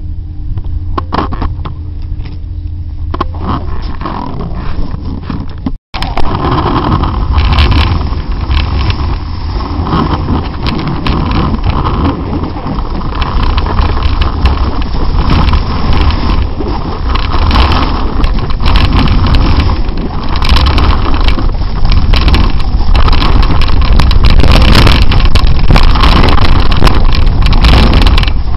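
Snowboard riding down a piste, the board scraping over hard-packed snow, heard from a camera strapped to the rider's leg with heavy wind rumble on the microphone. For the first few seconds there is only a low wind rumble; after a brief dropout about six seconds in, the riding noise comes in loud and grows louder toward the end.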